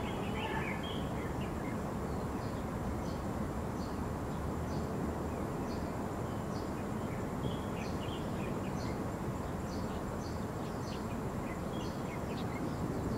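Steady outdoor background noise, strongest in the low end, with short high chirps recurring every second or so throughout.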